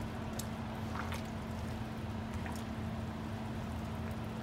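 A pot of noodle soup simmering on the stove, with scattered small pops and clicks of bubbles over a steady hum.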